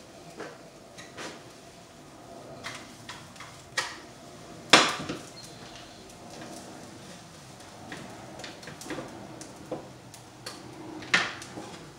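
Scattered clinks and knocks of cookware and a utensil against a frying pan on an electric stove, with the loudest knock about five seconds in and another strong one near the end.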